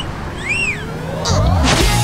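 A two-note wolf whistle, one rising whistle and then one that rises and falls, over background music. About one and a half seconds in, a low hit and a swelling swish lead into the music's next section.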